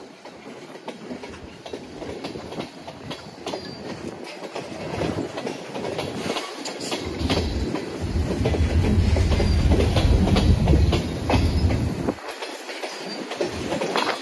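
Diesel freight train of the Iowa Northern Railway passing over a grade crossing, wheels clattering over the rail joints. It grows louder to its loudest about eight to eleven seconds in, with strong wind buffeting the microphone.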